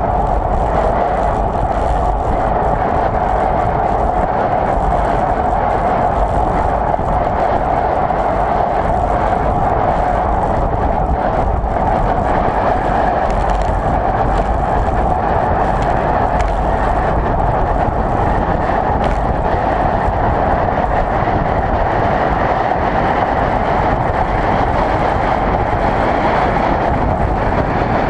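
Steady rush of wind over a moving camera's microphone mixed with wheels rolling on asphalt during a fast road descent, with a constant mid-pitched drone that holds level throughout.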